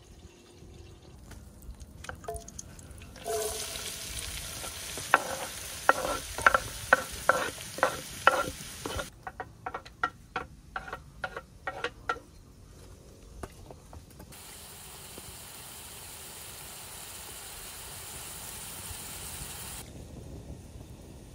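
Food frying and sizzling in a hot pan while a utensil stirs it with sharp knocks and scrapes, about three strokes a second. The sizzle cuts off and the stirring knocks go on alone for a few seconds, then a steady sizzle comes back.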